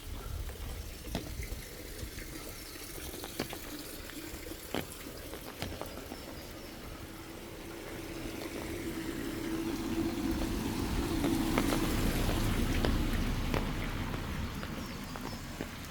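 Footsteps walking at a steady pace on a forest path. In the second half a rushing noise with a low hum swells up and fades away again.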